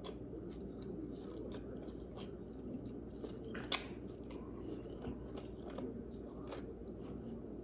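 Close-up chewing and biting of food, with faint irregular crunches and mouth clicks and one sharper click about three and a half seconds in, over a low steady hum.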